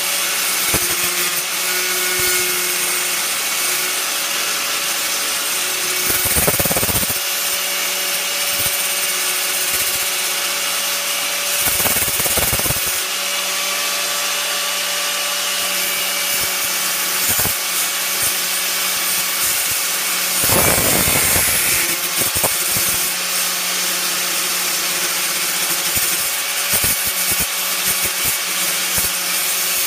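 Hyper Tough angle grinder running steadily, its cut-off wheel grinding through the thick steel of a Stanley nail claw, with three brief heavier bumps where the wheel bites harder.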